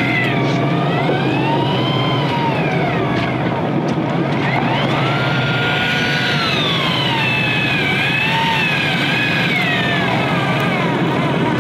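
Daiwa electric fishing reel's motor whining as it winds line in under load, its pitch sliding slowly down and up every few seconds. Under it are a steady low hum and wind and water noise.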